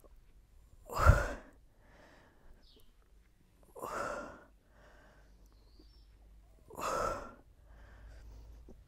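A woman exhaling hard three times, about three seconds apart, with fainter breaths in between: breathing with the effort of abdominal crunches.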